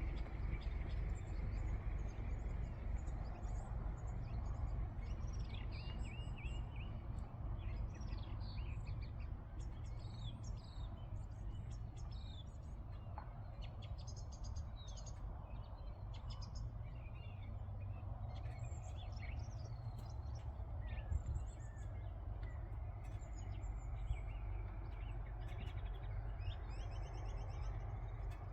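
Small birds chirping and calling at dusk, many short chirps and quick trills overlapping, over a steady low rumble.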